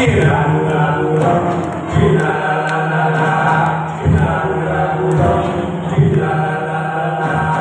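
Group singing a Central Highlands folk song to traditional bamboo instruments, with a steady low tone and a strong beat about every two seconds.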